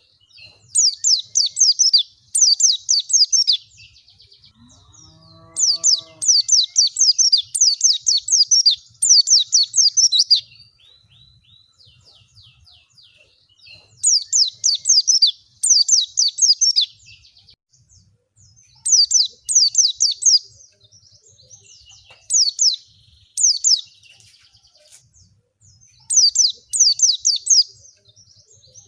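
White-eye (pleci) song: bursts of rapid, high, downward-slurred chirping notes in phrases of one to three seconds, with short pauses between.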